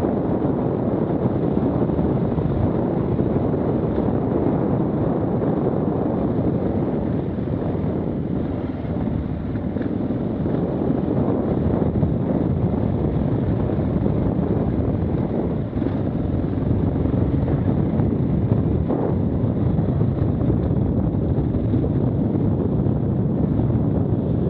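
KTM 690 Enduro R's single-cylinder engine running steadily while riding singletrack trail, mixed with wind noise on the microphone.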